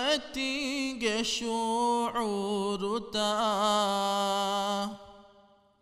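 A young man's voice singing a Dhivehi madhaha, an Islamic devotional chant, solo and unaccompanied, with long held notes ornamented by wavering turns. The last held note stops about five seconds in and dies away.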